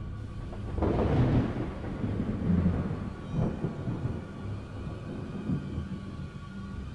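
Sound effects of an animated video intro: a low, thunder-like rumble that swells about a second in and again a little later. Faint steady tones sit above it in the second half.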